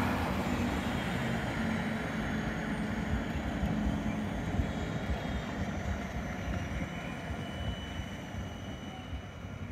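Yellow low-floor electric tram rolling past on its track and moving away, its running noise slowly fading, with a car driving by close at the start.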